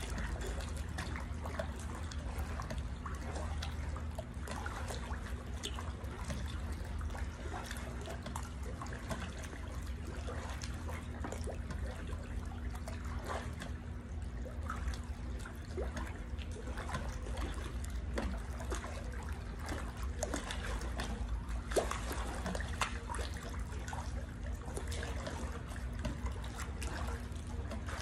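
Pool water splashing and lapping around a person exercising in it: a steady patter of small splashes over a low steady hum, with a sharper splash about 22 seconds in.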